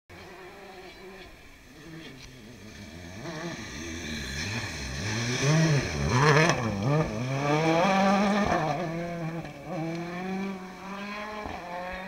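A World Rally Car's turbocharged four-cylinder engine comes closer and gets louder. Through a gravel hairpin its revs drop and climb again several times as the driver brakes, lifts and shifts, loudest in the middle. It then pulls away at steadier revs.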